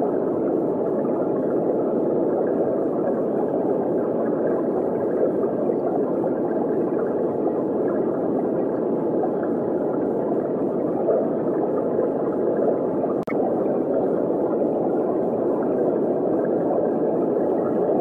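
Steady underwater water ambience: an even, dull rush of water that holds the same level throughout, broken by one brief click about thirteen seconds in.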